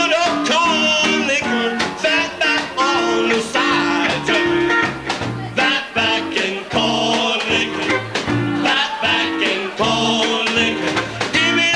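Live band playing an upbeat rhythm-and-blues song: electric guitar, trombone and upright bass over a steady beat, with singing.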